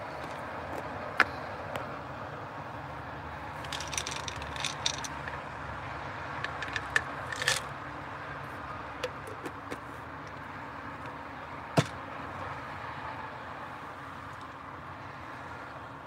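Steady background hum with scattered sharp clicks and small rattling taps from handling objects up close, the loudest click about a second in and another near twelve seconds.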